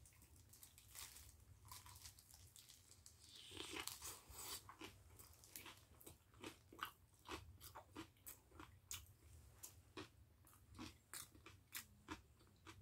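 A person chewing a mouthful of kimchi and steamed sweet potato with the mouth closed, quietly, with short sharp clicks about two a second from a few seconds in.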